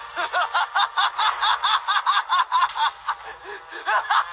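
A cartoon character's voice laughing in a rapid, high-pitched 'ha-ha-ha', about six or seven laughs a second, easing off briefly a little past the middle, then returning louder near the end.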